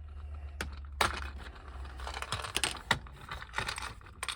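Handling noise from a plastic toy vehicle and its packaging: a run of light clicks and knocks with rustling.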